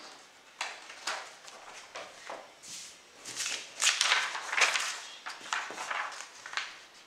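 Sheets of printer paper crackling and rustling, first as they are cut with scissors, then as they are shuffled and slid across a wooden table. The rustling is loudest and busiest in the middle.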